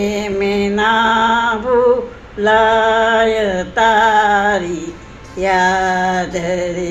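A woman singing a slow Gujarati song, drawing out long wavering notes in phrases of about two seconds with short breaks between them.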